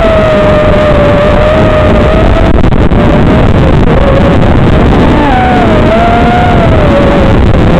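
Martian 220 FPV quadcopter's motors whining, the pitch wavering up and down with the throttle, over a steady loud hiss.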